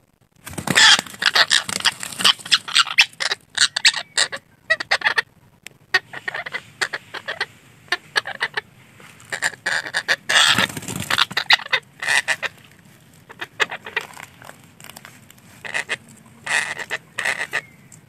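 Red-breasted parakeets calling in rapid runs of loud squawks, with short pauses between the runs.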